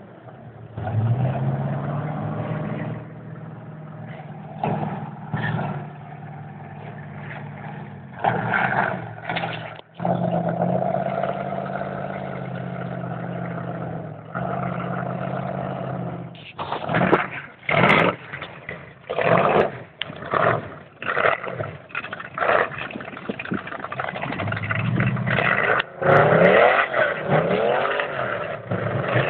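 A 4x4 mud truck's engine runs steadily, then revs in quick repeated surges in the second half, with several rising and falling sweeps of revving near the end.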